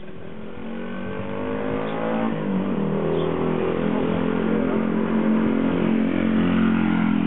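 Honda Gorilla monkey bike's small single-cylinder four-stroke engine accelerating: its pitch rises, drops at a gear change about two seconds in, then holds steady while the engine grows louder as the bike approaches.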